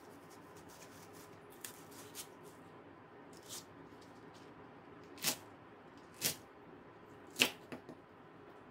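Chef's knife cutting through a Korean green onion (daepa) and striking a wooden cutting board. A few light crisp cuts come first, then three sharper chops about a second apart, the last followed by two quick small taps.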